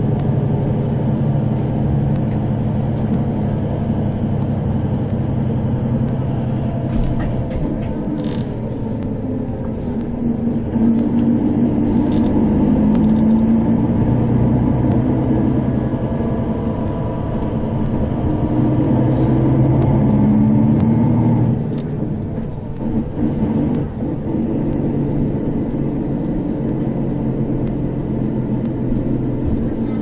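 Engine and road noise heard from inside a moving tour bus, a steady rumble whose engine note grows stronger twice as it accelerates, then eases off about 21 seconds in.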